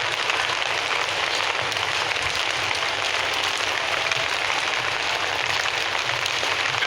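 Steady rain falling, a dense even hiss of many drops that keeps the same level throughout.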